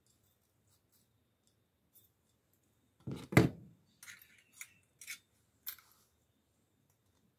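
Hand staple gun being reloaded with a strip of staples: one loud metal clack a little after three seconds in, then several lighter clicks and scrapes as the magazine is worked and closed.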